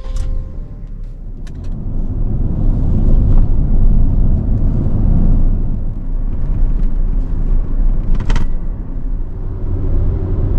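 Suzuki Spacia Base kei van driving: a steady low engine and road rumble that builds over the first few seconds as it gets under way, with a brief sharp sound about eight seconds in.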